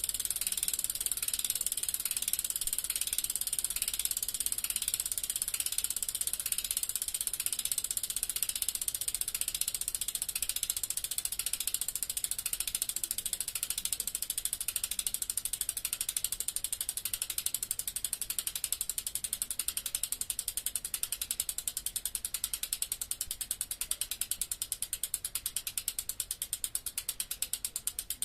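Bicycle freewheel ratcheting with a rapid, even ticking as the wheel coasts, the clicking fading gradually over the second half.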